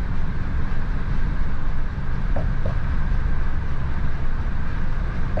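Steady low road and engine rumble heard inside a moving pickup truck's cab, with a soft double knock repeating about every three seconds.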